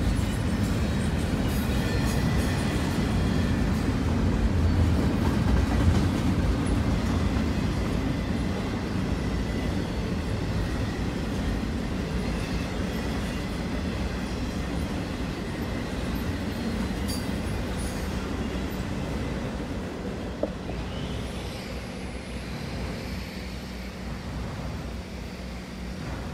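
A train rolling past on the tracks: a steady rumble of wheels on rail that slowly fades as it moves away.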